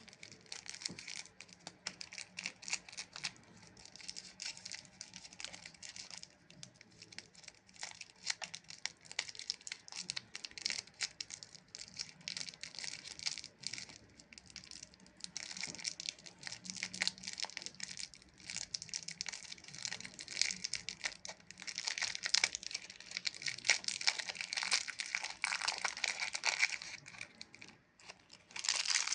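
Close-miked crinkling and crackling of Chupa Chups lollipops and their plastic wrappers being handled: a dense, unbroken run of small sharp crackles that eases off briefly near the end.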